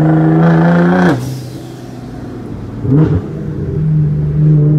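Nissan GT-R R35's twin-turbo V6 heard from inside the cabin, pulling at a steady note, then easing off about a second in. A quick rev rises and falls around three seconds in, and the engine pulls steadily again near the end.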